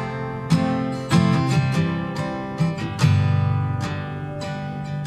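Background music: a country song's intro, acoustic guitar strumming chords, with no singing yet.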